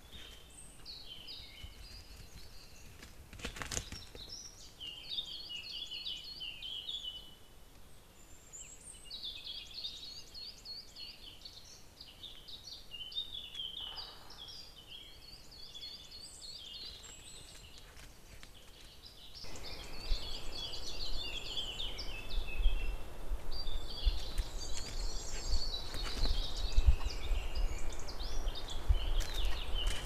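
Several songbirds singing and chirping in woodland, phrase after phrase. About two-thirds of the way through a low rumbling noise with scattered knocks comes in and grows louder.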